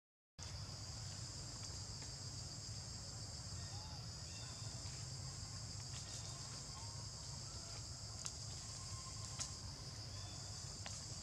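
Steady high-pitched chorus of insects, with a low rumble underneath and a few faint clicks or rustles in the second half. The sound drops out for a moment at the very start.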